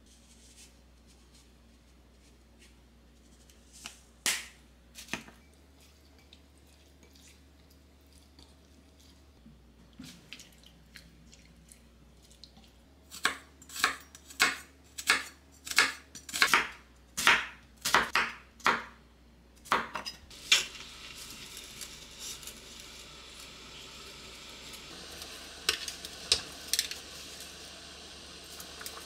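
Knife chopping on a cutting board, about a dozen strokes at roughly two a second, after a few scattered taps. Then a steady hiss begins and runs on under a few light clicks.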